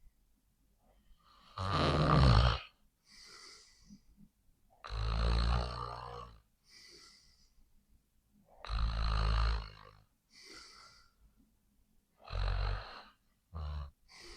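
A sleeping person snoring: a loud snore about every three and a half to four seconds, with a softer breath between each. Near the end two shorter snores come close together.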